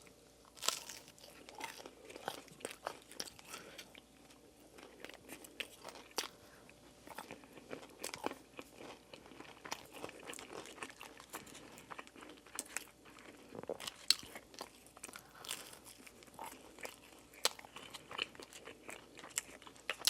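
Close-miked chewing and eating mouth sounds, many small wet clicks and smacks, from a person eating spicy Buldak noodles.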